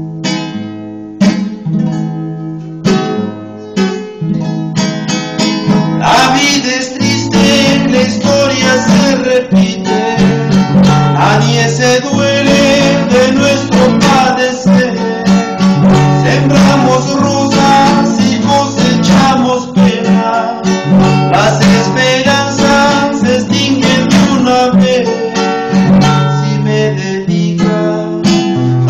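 A man singing a Spanish-language song to his own classical guitar. The guitar plays alone for the first several seconds, and the voice comes in about six seconds in and carries on over the strummed and plucked accompaniment.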